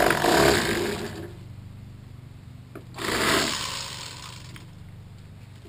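Electric fillet knife running with a steady motor hum while its blades saw through a catfish fillet. The cutting is louder for about a second at the start and again from about three seconds in.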